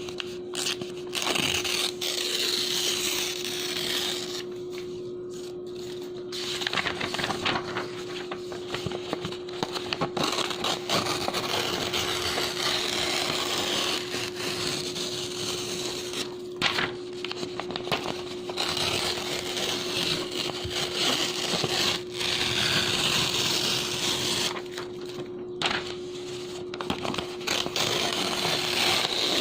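Clean bond paper being torn and ripped, a crisp, rough crackling that runs in long stretches broken by a few short pauses.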